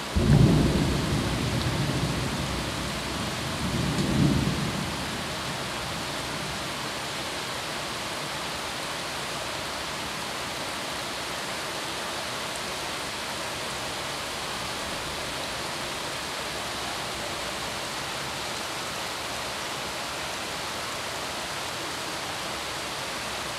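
A low rumble lasting about five seconds, swelling again about four seconds in, over a steady even hiss that carries on after the rumble fades.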